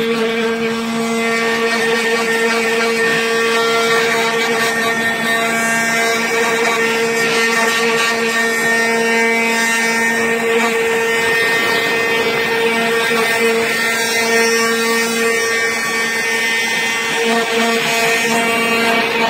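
Homemade CNC carving a block of wax: the spindle motor and a small blower fan run together in a steady pitched hum that holds the same pitch throughout, with a noisy hiss on top.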